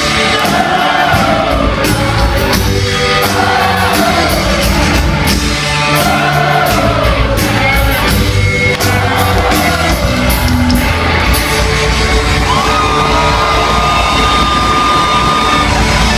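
Live rock band playing, with singing and whoops from the crowd, recorded loud on a phone in a large hall. Near the end a long note is held steady.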